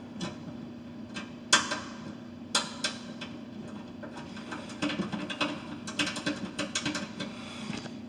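Screws and the stainless-steel cover panel of a drinking fountain being handled and fitted: two sharp metal clicks, about one and a half seconds in and again a second later, the first the loudest, then a quick run of small clicks and ticks for a couple of seconds near the end, over a steady low hum.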